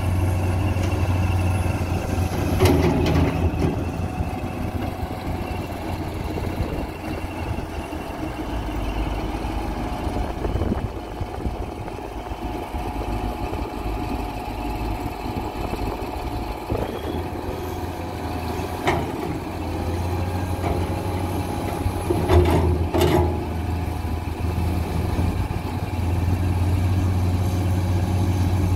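Hyundai dump truck's diesel engine running steadily while its hydraulic hoist raises the tipper bed to dump a load of soil. A few sharp knocks break through, the loudest about 23 seconds in.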